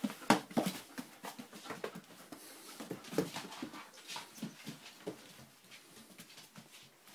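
Labradoodle puppies whimpering, with short scratchy rustles of paws scrabbling in shredded-paper bedding. It is busiest in the first second or so and gets quieter after that.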